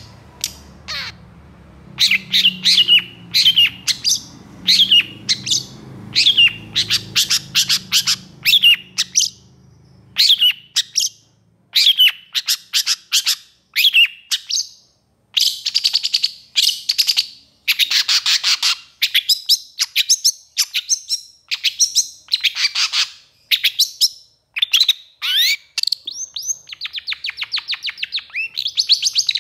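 Long-tailed shrike (pentet) calling excitedly: an unbroken run of short, sharp notes, one or two a second, many sweeping in pitch, with several quick rattling trills among them. A low hum sits underneath and stops about ten seconds in.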